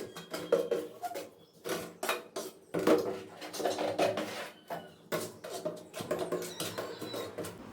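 Hand work on the sink installation: an irregular run of clicks, taps and knocks with short scraping rubs, as of tools and materials being handled and set against hard surfaces.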